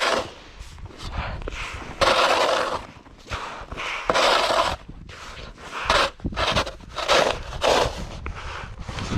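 Crunching and scraping in snow during snow clearing. There are two longer scrapes in the first half, then shorter crunching strokes about once a second.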